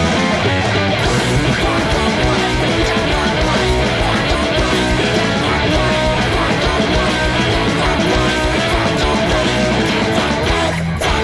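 Loud rock music with guitar, bass and drums playing steadily, with a brief break just before the end.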